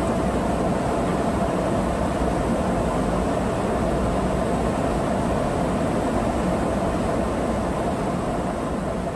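Steady in-flight jet aircraft noise during aerial refuelling: an even rush of engine and airflow with a constant hum, heard from aboard the aircraft.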